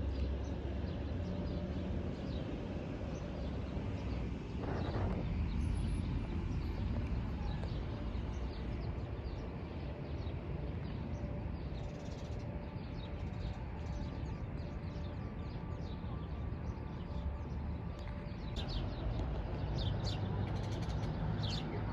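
Birds chirping over a steady low background rumble, the chirps coming thickest near the end.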